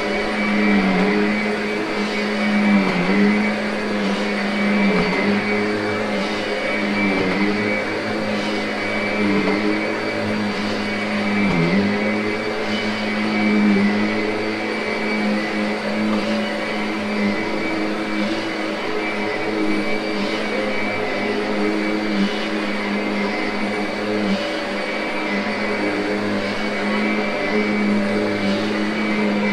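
Kirby upright vacuum cleaner running steadily as it is pushed back and forth over carpet. Its motor pitch dips briefly about every two seconds with each stroke.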